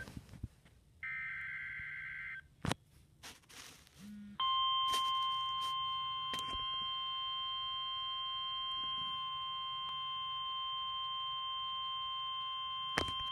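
A brief burst of the warbling two-tone SAME data header, then, about four seconds in, the NOAA Weather Radio 1050 Hz warning alarm tone: one steady, piercing tone held for about nine seconds, signalling that a warning message follows.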